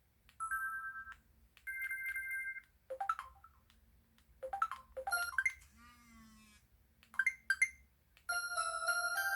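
Samsung Anycall SPH-V9500 slim folder phone playing a string of short electronic sound effects: two-note beeps, brief chirps, a rippling sweep and a couple of clicks, one after another with pauses between. A melody of several notes begins near the end.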